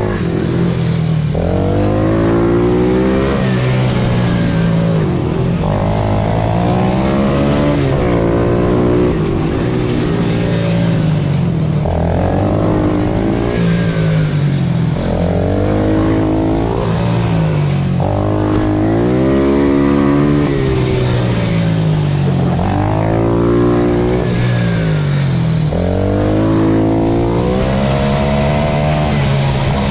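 Pit bike engine heard onboard while lapping a tight track: its pitch climbs hard out of each corner and drops as the throttle closes, over and over every few seconds, under a steady rush of wind and engine noise.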